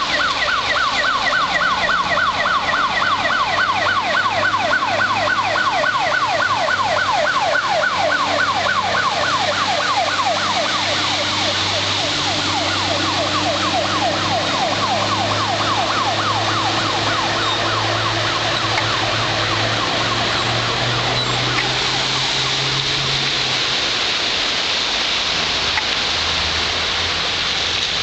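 Fire engine siren sounding a rapid yelp, several quick sweeps a second, fading after about a dozen seconds as the truck goes by. Underneath, the truck's engine hums, and its tyres send up a rushing splash through deep standing floodwater that takes over toward the end.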